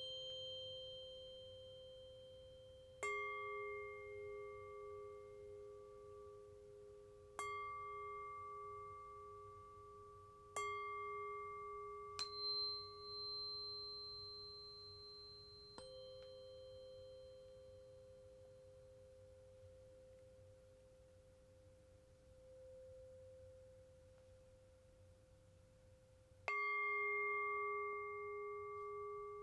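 Tibetan singing bowl and tuning forks struck one after another, about six strikes, each leaving long, slowly fading ringing tones that overlap. The ringing dies down through a longer pause in the second half before a fresh strike near the end.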